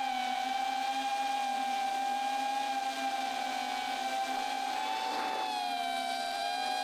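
FPV quadcopter's brushless motors and propellers whining steadily in flight, the pitch drifting slightly with throttle, with a brief rush of air about five seconds in.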